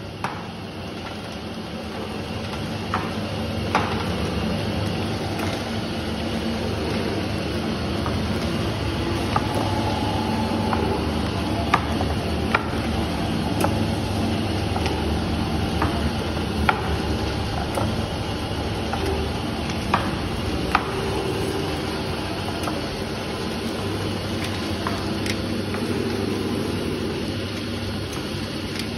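Newspaper-pencil making machine running with a steady motor hum as its glue rollers turn, broken by scattered sharp clicks.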